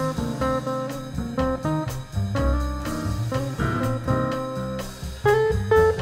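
Instrumental jazz: an electric or acoustic guitar plays a line of single plucked notes over upright bass and drums.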